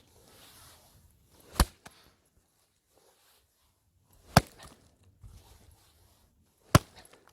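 Firewood being split by hand: three sharp blows into wood, a little over two seconds apart.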